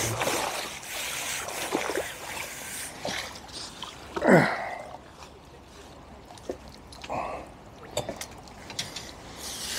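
Common carp splashing in a landing net at the water's surface, then water trickling and dripping off the mesh as the net is lifted out. A short falling vocal sound comes about four seconds in.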